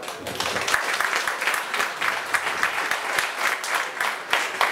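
Crowd of spectators applauding: dense, irregular hand-clapping that breaks out suddenly, with a few sharper single claps standing out near the end.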